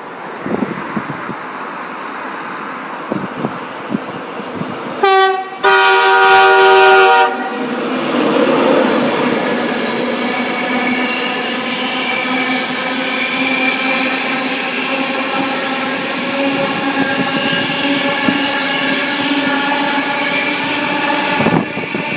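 Passing express train sounding a two-note horn, a short blast then a longer one about five seconds in, then running through with a steady, pitched hum of its motors and wheels for about fourteen seconds. Strong wind buffets the microphone before the horn.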